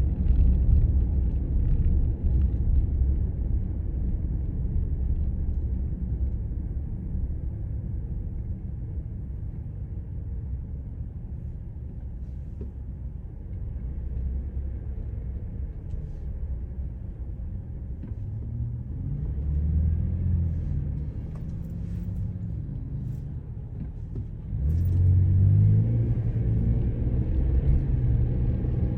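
Car driving on the road: steady low rumble of engine and tyres, with the engine note rising around two-thirds of the way in and getting louder again near the end.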